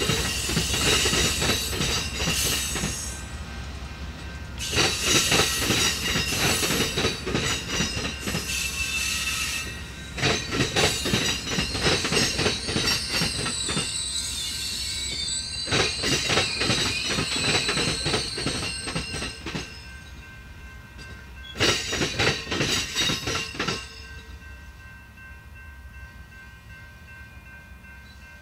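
Amtrak Superliner passenger cars rolling over a railroad diamond crossing: loud clattering runs of bangs as each set of wheels hits the crossing, in groups as truck after truck goes over, with a high wheel squeal in the middle. Near the end the clatter stops and only a quieter rumble of the receding train remains.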